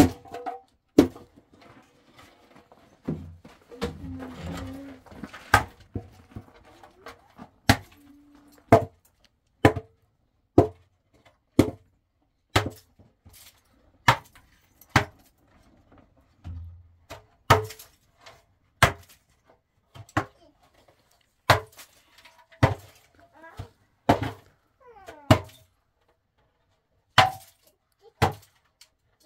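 Repeated sharp knocks: some twenty single blows, roughly one a second and slightly irregular, like a tool striking wood or other material.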